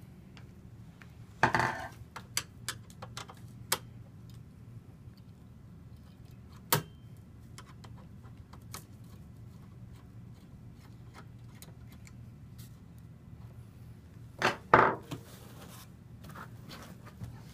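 Screwdriver work on the metal chassis of a Cisco ASA 5515-X firewall: scattered light clicks and taps of the tool and the case being handled, with a few louder clatters, the loudest about fifteen seconds in, over a low steady hum.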